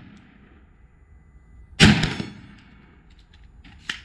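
A single AR-15 rifle shot about two seconds in, its report echoing and trailing off over about half a second. A shorter, quieter sharp crack follows near the end.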